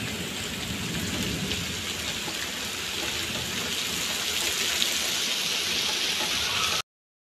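Heavy rain pouring down onto wet paving, a steady hiss, with a low rumble of thunder dying away in the first second. The sound cuts off suddenly near the end.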